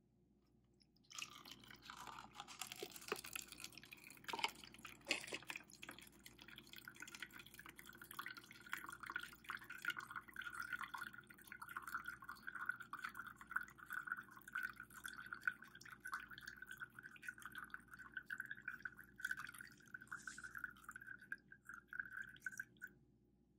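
Cloudy water with white powder poured into a paper filter cone, with a few light knocks, then water dripping fast and steadily through the filter into a plastic cup. The dripping is faint and stops suddenly shortly before the end.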